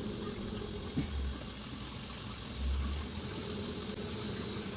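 Gas water heater burner running after being lit: a steady low rumble with hiss, a click about a second in, and two short deeper rumbles.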